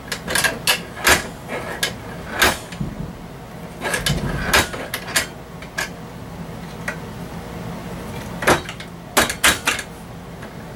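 Sharp clicks and clunks from a Cuisinart stand mixer's tilt-head hinge latch being worked by hand after repair, the latch catching again. The knocks come irregularly, with a cluster about four seconds in and another near the end.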